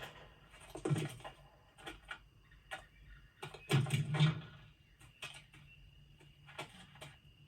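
Film sound effects: a scatter of light clicks and taps, with two louder bumps about one second and four seconds in, over a faint steady high-pitched hum.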